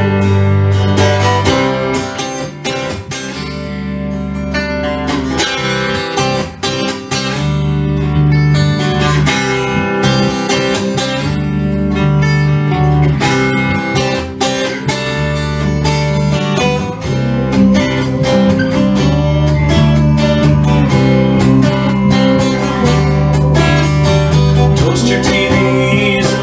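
Instrumental break of a country-style song: acoustic guitar strummed over sustained bass notes, with no singing.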